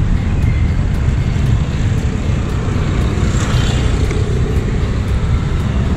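Steady low rumble of city street traffic, with no distinct single event standing out.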